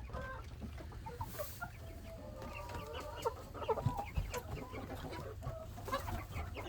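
A flock of young chickens clucking and cheeping, many short calls overlapping one another.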